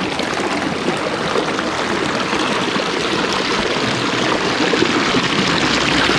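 Small stream of water splashing and trickling over rocks, a steady rush of water.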